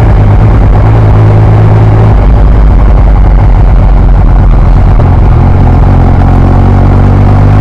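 A 2020 Yamaha MT-09's inline-three with an Akrapovic full exhaust, heard from the rider's seat while riding at a steady pace, under loud low wind rumble on the microphone. The engine note eases off about two seconds in and comes back stronger after about five seconds.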